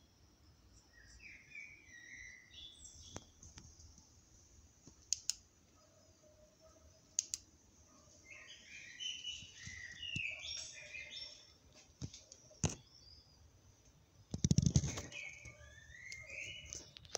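Small birds chirping and twittering on and off, with a few sharp clicks and a brief low rumble about fourteen and a half seconds in.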